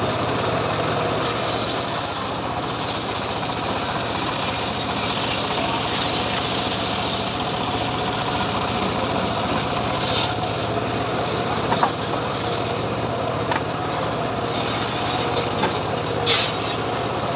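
Homemade engine-driven srekel sawmill running steadily while sawing mahogany, the engine's even drone under a wide rasping noise. A brighter high hiss rises for about two seconds near the start, and a few short sharp knocks come in the later part.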